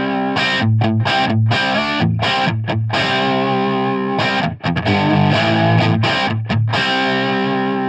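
Distorted electric guitar, a Fender Stratocaster, playing a chord riff with frequent short, sharp stops between the chords. It is heard through a Shure SM57 placed close to the amp's speaker cabinet.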